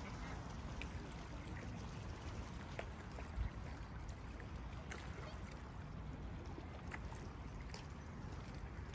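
Lake water lapping and trickling gently, with scattered small splashes and clicks over a low steady rumble.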